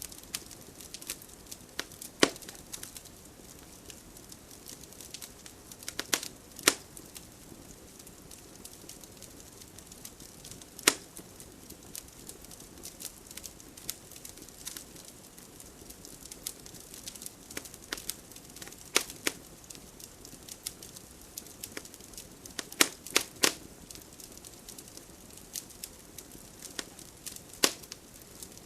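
Fireplace fire crackling: irregular sharp pops and snaps over a soft steady hiss of burning, with a few louder pops scattered through.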